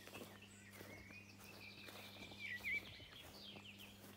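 Faint outdoor birdsong: a sliding, warbling call around the middle and quick falling chirps near the end, over a steady low hum and soft footsteps.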